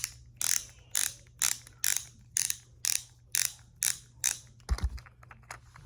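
Plastic fidget toy clicking in a steady rhythm, about two sharp clicks a second, ten in all, followed by a single dull thud.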